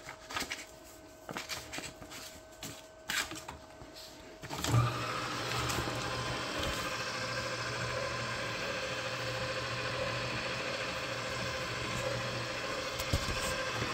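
Member's Mark autofeed micro-cut paper shredder: a few faint clicks as paper is loaded, then about five seconds in its motor starts and runs with a steady hum, while the stack in the autofeed tray is definitely not going down.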